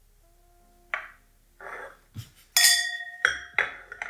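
Glass clinking, several sharp strikes with a clear ringing tone after them; the loudest and longest ringing comes about two and a half seconds in.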